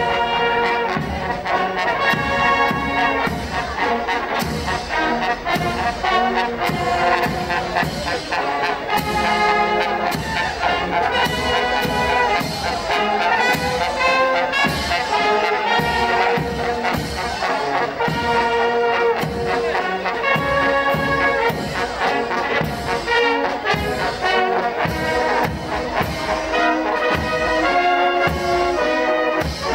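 Marching brass band playing a march as it walks: trombones, trumpets, tubas and baritone horns over a steady bass drum beat.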